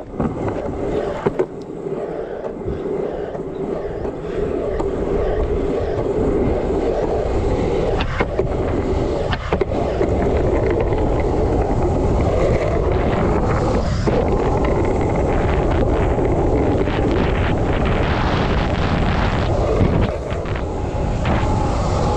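Skateboard wheels rolling steadily over concrete, getting louder about five seconds in. A few sharp clacks come as the wheels cross cracks and slab joints.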